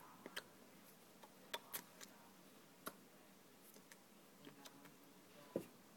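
Near silence broken by a handful of short, sharp clicks and taps at irregular moments, the loudest near the end.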